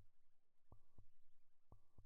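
Faint heartbeat sound effect: a lub-dub double thump repeating about once a second.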